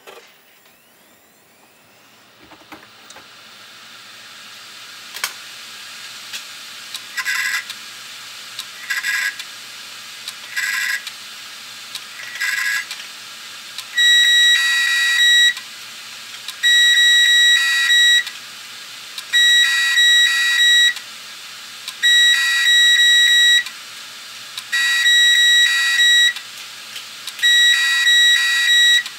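Failing hard disk drive beeping: a few short beeps at first, then longer steady beeps repeating about every two and a half seconds, over a faint hiss. Such beeping is typical of a drive whose spindle motor cannot spin the platters up, as with stuck heads or a seized spindle.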